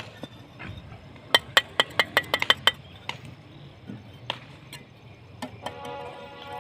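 Bricklayer's steel trowel tapping bricks into place: a quick run of about nine sharp, ringing metallic clinks, then a few single knocks.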